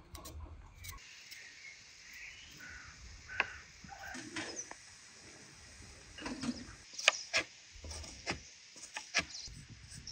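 Ground meat sizzling in a frying pan: a steady hiss, with several sharp knocks and scrapes from a wooden spatula stirring it.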